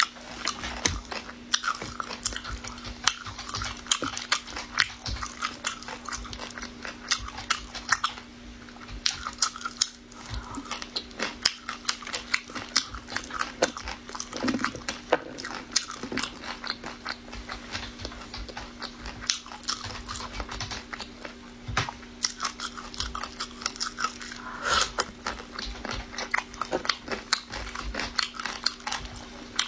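Close-up chewing and biting of spicy chicken feet and cartilage bones: continuous wet crunching with many sharp clicks and smacks. A faint steady low hum runs underneath.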